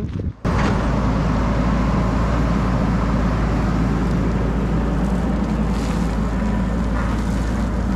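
A steady engine rumble mixed with wind noise on the microphone, starting about half a second in and continuing evenly without a break.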